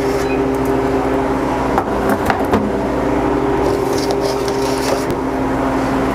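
Steady hum of a Harvest Right freeze dryer's machinery running, with a few light metal clicks about two seconds in as metal trays of freeze-dried banana slices are slid out of the chamber.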